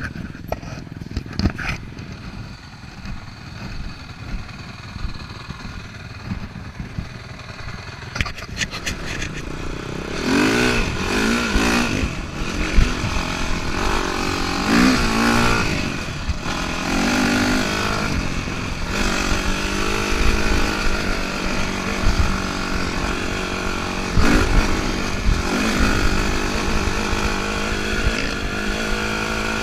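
Dirt bike engines. For the first ten seconds the engine is quieter and further off. About ten seconds in it becomes loud and close, heard from the bike itself, revving up and down through the gears before settling into a steadier note with a last rev rising near the end.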